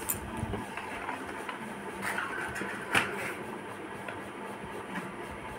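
Quiet room tone with a few faint clicks and one sharper click about three seconds in.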